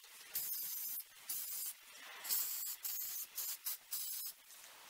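Aerosol spray can of protective lacquer hissing in a series of short bursts, some a fraction of a second, as a coat of waterproofing lacquer is sprayed onto a drone's electronics.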